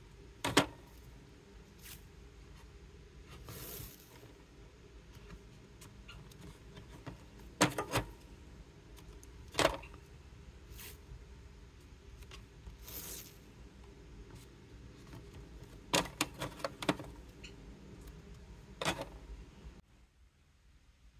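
Hands working paper strips on a canvas: scattered sharp taps and clicks, some in quick clusters, with two brief rustles in between and a low steady background.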